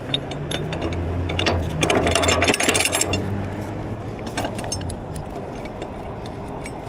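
Heavy wreckers' engines running with a steady low hum while their winch and lifting gear work. A rapid run of mechanical clicks comes through, loudest about two to three seconds in.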